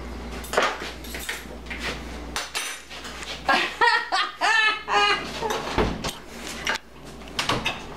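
Forks and spoons clinking and scraping against plates and a glass baking dish while lasagna is served, a run of short clicks and knocks. A voice comes in briefly around the middle.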